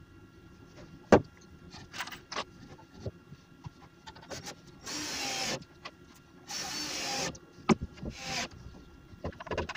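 Cordless drill-driver driving screws into the timber rails of a frame, running in short bursts, the two longest about five and six and a half seconds in. A sharp wooden knock about a second in and scattered knocks and clicks come from the boards being handled and set in place.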